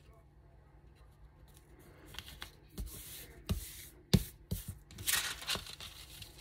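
Paper rustling and sliding as a glued book page and a paper envelope are handled and pressed flat on a tabletop. There are a few sharp knocks of hands or paper on the table a little past halfway, and a louder rustle about five seconds in.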